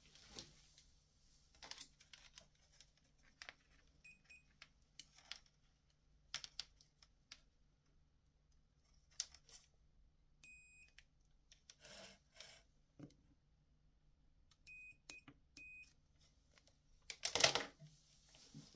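Digital multimeter's continuity buzzer beeping as the test probes touch the wire and fitting of a PVC end cap: a short beep, then a longer beep of about half a second, then three quick beeps. The beeps signal an unbroken electrical connection. Small clicks and knocks of the probes and plastic parts being handled run between them, with a louder clatter near the end.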